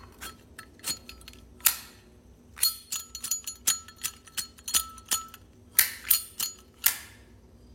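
Zippo lighter being handled: a quick, uneven series of sharp metallic clicks and clinks, some ringing briefly, as the lid and flint wheel are worked.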